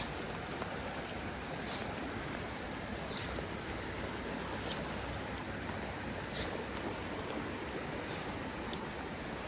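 Steady rush of a mountain creek tumbling over a waterfall, with a few faint high ticks scattered through it.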